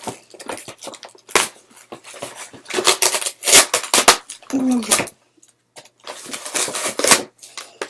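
Stiff plastic and cardboard toy packaging being handled and pried at: a run of sharp crackles and clicks, with denser crinkling about three seconds in and again about six seconds in. A brief voiced sound from the person comes near the middle.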